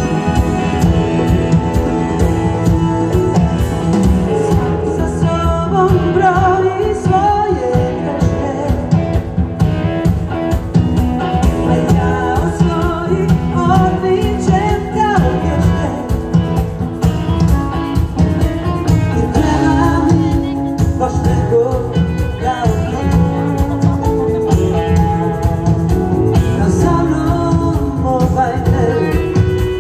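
Live band playing a song: a woman singing lead over electric guitar, bass, keyboard and a drum kit keeping a steady beat.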